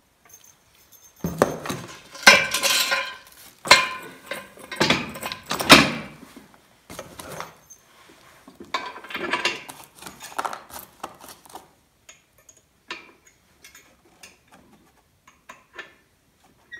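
Steel parts of a Torin Big Red 1-ton engine hoist clanking and scraping as they are handled and fitted together at the base, metal on metal. The clatter comes in two loud stretches, then gives way to a run of small sharp clicks and clinks in the last few seconds.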